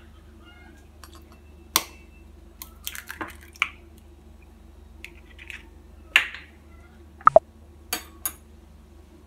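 Sharp taps and clicks as an egg is cracked with a fork against a glass measuring cup of milk and the shell is pulled apart. Near the end come glass clinks as a glass spice jar is picked up. A steady low hum runs underneath.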